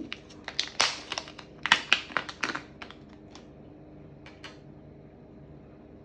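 Small plastic packet crinkling and clicking in the fingers as it is opened and a metal clasp is taken out: a quick run of sharp crackles and clicks for about three seconds, then it stops.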